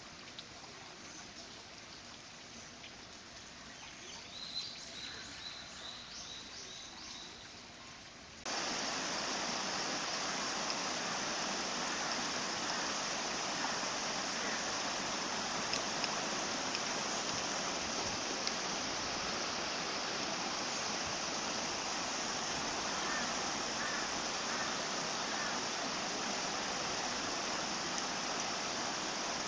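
A quiet stretch with a few faint high chirps, then from about eight seconds in a steady, louder rushing noise like running water that carries on unbroken.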